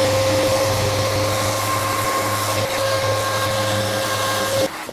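Festool random orbital sander running steadily against an epoxy-coated wooden kayak hull, with the steady drone of a vacuum dust extractor drawing through the sander's hose; the noise stops abruptly near the end.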